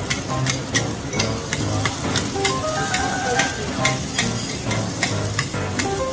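Diced radish cake and egg sizzling in oil in a wide flat wok while two metal spatulas chop and scrape through it, clacking against the wok about two to three times a second.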